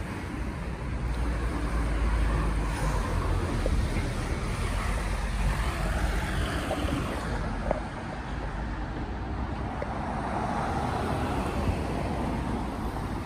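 Steady low road and tyre rumble inside a BYD Alexander Dennis Enviro200EV electric bus on the move, with a few faint ticks and rattles.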